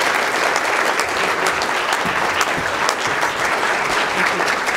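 Audience applauding steadily: many hands clapping at once, after a speaker's closing thanks.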